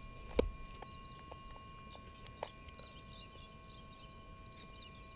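Faint birds chirping in the background, with one sharp click about half a second in and a softer click a couple of seconds later.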